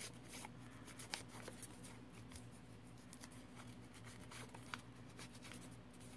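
Faint, scratchy rubbing with scattered small clicks as an ink blending tool is dabbed and rubbed along the edge of a strip of ribbon or paper to distress it with ink.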